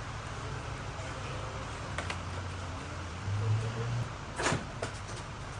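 Steady low shop hum with a few sharp clicks and knocks of work on the truck, the loudest about four and a half seconds in. A low drone swells between about two and four seconds in.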